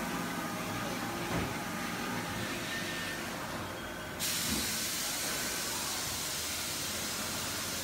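Machinery of a melamine lamination hot-press line running steadily, with a few soft knocks, then a steady high hiss that cuts in suddenly about four seconds in and holds.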